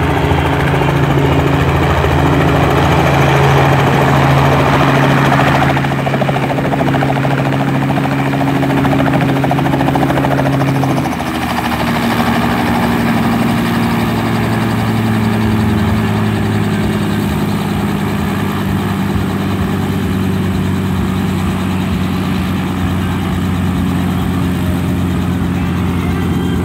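Small Robinson piston helicopter landing close by, with rotor wash noisily buffeting the microphone for the first few seconds. About eleven seconds in, its engine and rotor note drops in pitch and then runs on steadily as the helicopter sits on the ground with the rotor turning.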